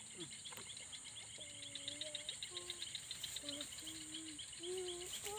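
Night insects chirping in chorus: a steady high trill with a rapid, even pulsed chirping beneath it, typical of crickets. Faint held lower tones come and go over it.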